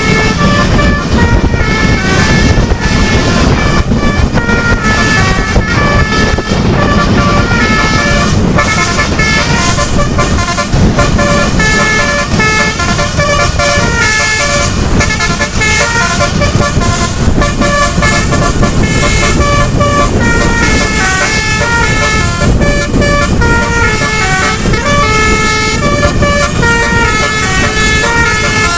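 Bus 'telolet' multi-tone horn playing a tune of quick stepped notes over and over, over the steady low rumble of the moving vehicle.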